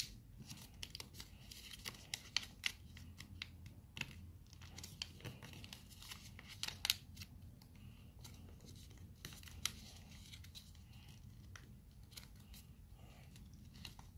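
A square of white paper being folded and creased by hand: soft rustling and crinkling with many short, irregular crackles as the folds are pressed down.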